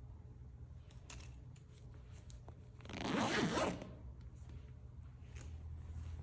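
A zipper pulled once, a quick zip of just under a second about three seconds in. A few faint handling clicks and rustles come before and after it.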